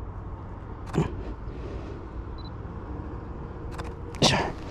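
Canon EOS R6 shutter firing as close-up shots are taken: a sharp click about a second in and more clicks near the end, the last the loudest, over a steady low rumble.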